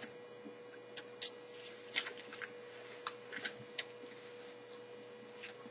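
A sheaf of paper pages being handled and leafed through: scattered light rustles and ticks, over a steady hum.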